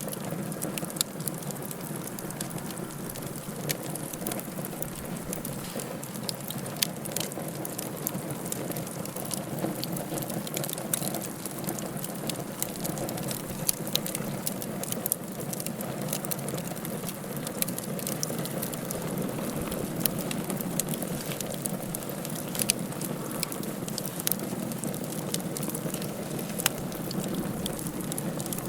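Wood fire burning in a fireplace: a steady hiss and rustle of flames with frequent sharp crackles and pops.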